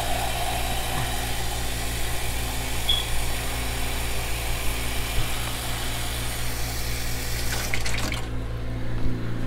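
Water being poured into a pot of beef stew, a steady pour that stops about eight seconds in, over a low steady hum.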